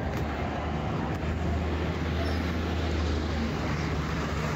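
Street traffic: a nearby vehicle engine runs steadily, as a low hum, over general street noise.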